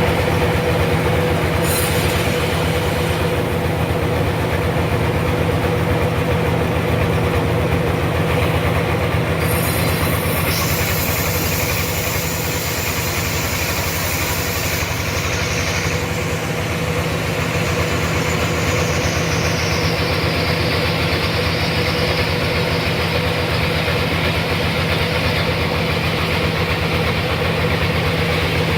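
Sawmill machinery running steadily while sawing a large trembesi log into planks: a constant machine drone with a steady hum, the higher hiss shifting about ten seconds in and again toward twenty.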